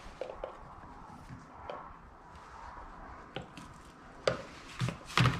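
Light scattered clicks and rubbing of a rubber fuel line being worked onto a fitting on a chainsaw's body, with a few sharper knocks in the last second and a half.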